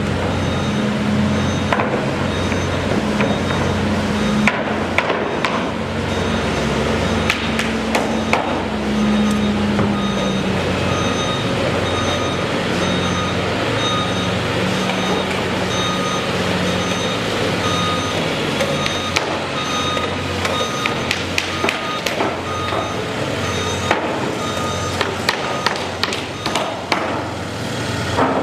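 Construction-site noise: a heavy diesel machine running steadily, with a reversing alarm beeping over it and scattered sharp metal knocks and bangs.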